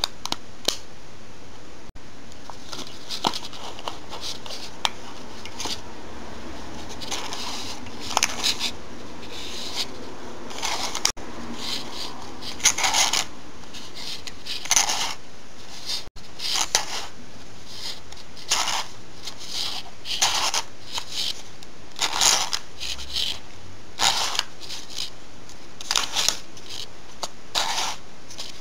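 Strip of 120 roll film being fed into a stainless-steel wire spiral reel by hand: a few light clicks at first, then irregular short scraping and rustling sounds every second or two as the film slides along the steel spiral.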